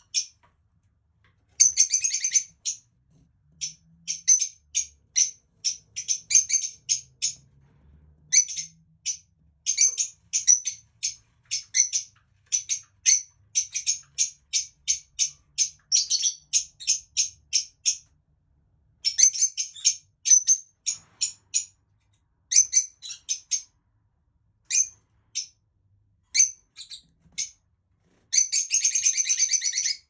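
Dark olive lovebird chirping: quick strings of short, high-pitched chirps broken by brief pauses, running into a dense, unbroken chatter near the end.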